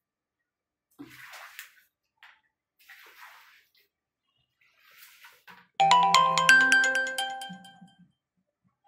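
A whiteboard duster wiping across a whiteboard in three short strokes. Then, about six seconds in, a loud two-second jingle of quick, bright, ringing notes.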